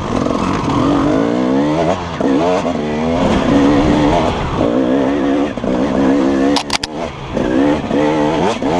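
KTM 300 EXC two-stroke dirt bike engine revving up and down again and again as the throttle is worked. A few sharp knocks come about two-thirds of the way through.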